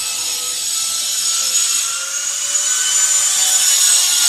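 Angle grinder running steadily as it grinds ceramic tile, a high whine over a rasping hiss, growing louder about two seconds in.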